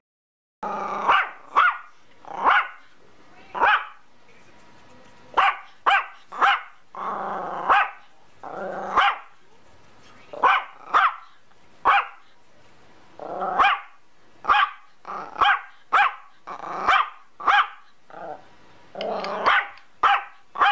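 Yorkshire terrier barking over and over in short, separate barks at an uneven pace, with a few longer, drawn-out ones among them.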